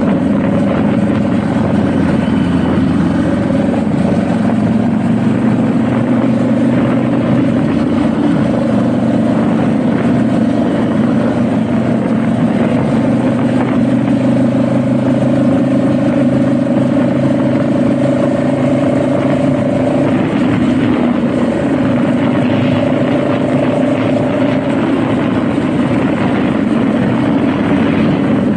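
Honda Rebel motorcycle engine running steadily as the bike is ridden, holding an even engine note with only slight shifts.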